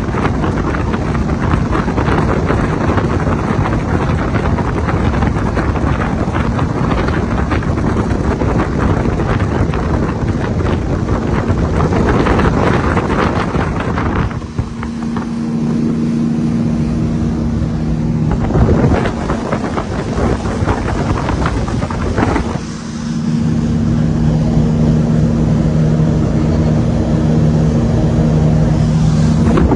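Surf boat's engine running at speed under way, with heavy wind buffeting the microphone and water rushing past the hull. The wind rush covers most of the first half; in the second half the engine's steady low hum stands out more clearly.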